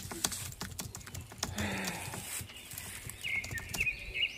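Footsteps on a paved park path, a run of sharp irregular taps, with small birds chirping several times near the end.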